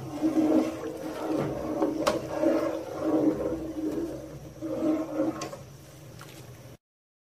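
A pot of rice boiling in water and being stirred with a metal spoon: an uneven bubbling rumble that swells and fades in waves, with two sharp clinks of the spoon against the pot. It cuts off suddenly near the end.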